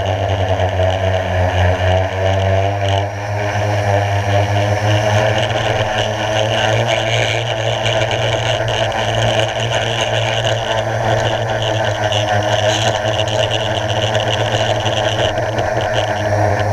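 Blade 350 QX quadcopter's brushless motors and propellers running in flight, heard up close from the camera mounted on it: a loud, steady drone made of several tones that shift slightly in pitch as the throttle changes.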